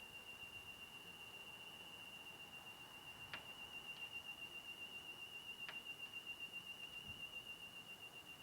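Synthesized sci-fi alien sound effect: a faint, steady high whistle-like tone that wavers slightly, with a few soft clicks.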